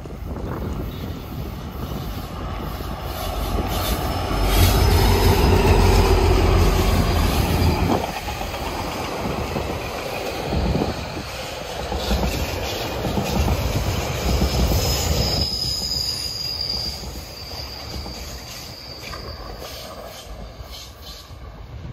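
A GO Transit diesel push-pull commuter train with bilevel coaches passing close by. It is loudest about a quarter of the way in as the locomotive goes by with a deep rumble, then settles into steady rolling wheel noise with a thin high wheel squeal about two-thirds through, and fades as the cab car pulls away.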